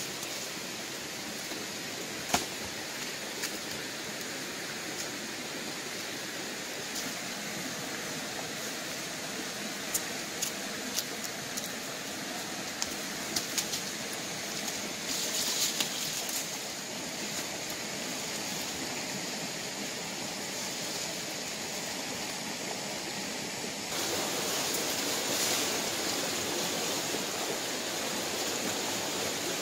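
Steady rush of flowing stream water, growing a little louder near the end, with a few sharp knocks and clicks here and there.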